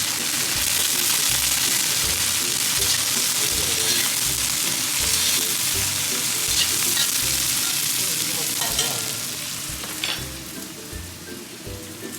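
Cabbage sizzling in hot oil as it is stir-fried in a pan, a dense steady hiss that eases off near the end. Background music with a low regular beat underneath.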